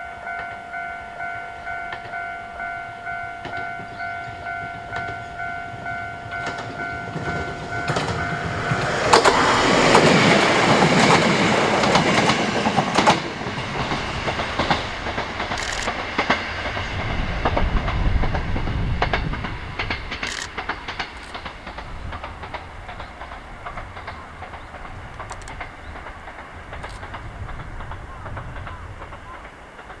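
Level-crossing alarm bell ringing in a steady, rapidly repeating ding, which stops about eight seconds in. A two-car KiHa 11 diesel railcar set then passes close by with a loud rush of wheels on rail, and its engine rumble fades as the train moves away.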